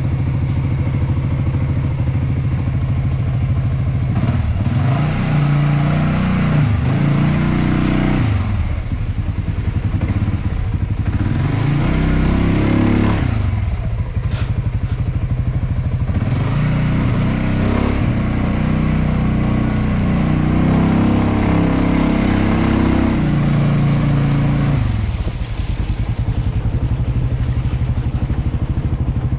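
A Suzuki Skywave 400 single-cylinder scooter engine with CVT, fitted to a BMW C1, running under way. Its revs rise and fall again and again as the scooter accelerates and slows.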